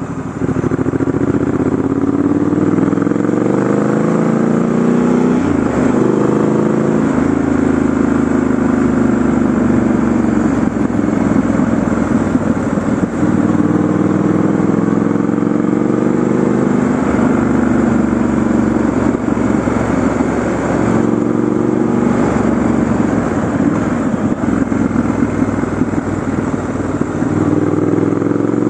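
Triumph Scrambler 1200 XE's 1200 cc parallel-twin engine pulling the bike along, its pitch climbing under throttle and dropping back at each gear change or roll-off, several times over, with steady wind and road noise underneath.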